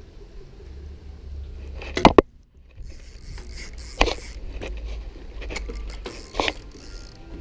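Spinning reel being cranked and handled as a hooked bluegill is brought in, with knocks and rubbing as the arm brushes the head-mounted camera. Sharp knocks come about two, four and six and a half seconds in, and a hissing scrape runs from about three seconds on.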